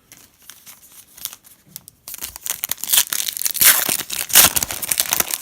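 A few light clicks of card handling, then from about two seconds in a trading-card pack's plastic wrapper being torn open and crinkled loudly.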